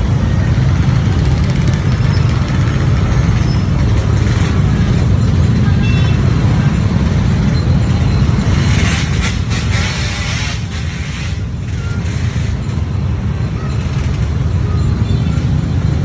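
Large bus engine running with a heavy, steady low rumble, and a burst of hiss about nine seconds in that lasts roughly two seconds.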